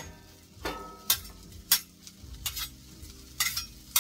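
Onions sizzling on a stainless-steel electric flat top griddle, frying to season the new cooking plate, while a metal utensil scrapes and taps the plate with about half a dozen sharp clicks.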